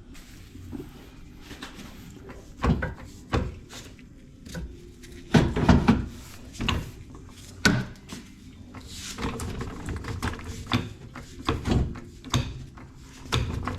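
Irregular knocks and clunks of tools and metal parts being handled during work on the car's lowered front subframe, with a louder cluster of clunks about halfway through.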